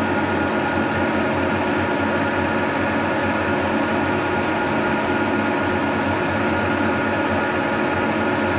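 1940s Brown & Sharpe horizontal milling machine running through its gear and chain drive, turning a Wohlhaupter boring and facing head at 250 rpm through a light facing cut on a cast iron lathe chuck back plate. The sound is a steady mechanical drone carrying several steady tones.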